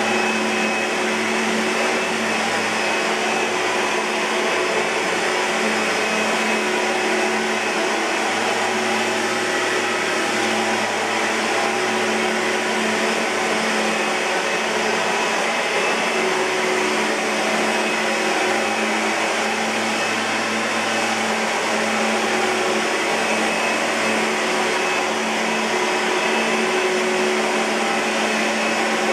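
Oreck Magnesium LW100 lightweight upright vacuum cleaner running steadily, a loud, even motor drone with a constant whine over the rush of air.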